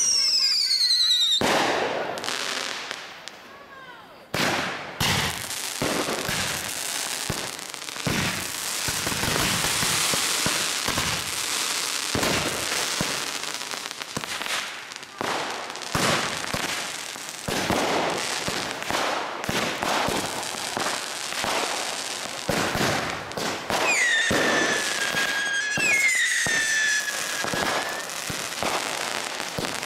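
Consumer fireworks going off in a dense run of bangs and crackles. A whistle falls in pitch at the start, and two more whistles slide down near the end.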